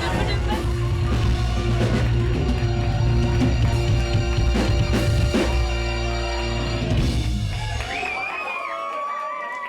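Rock-style background music with drums and a heavy low end; about eight seconds in the bass and drums drop out and lighter wavering tones carry on as the music fades down.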